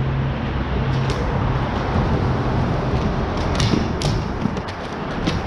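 Ball hockey play: sharp clacks of sticks and ball on a plastic sport-court floor, a few early and several in quick succession from about three and a half seconds in, over a steady noisy background.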